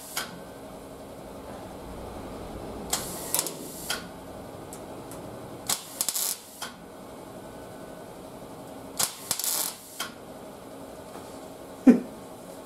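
MIG welder laying three short tack welds of about a second each, crackling and sputtering, on the thin, rust-weakened sheet steel of a 1950 Ford hood that keeps burning through. A sharp thump near the end.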